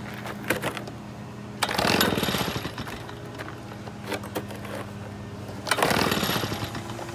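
Two pull-starts of an Echo backpack leaf blower's two-stroke engine, about two seconds in and again near the end, each a second-long rattle of the engine cranking over without catching: the blower is refusing to start. A steady low hum runs underneath.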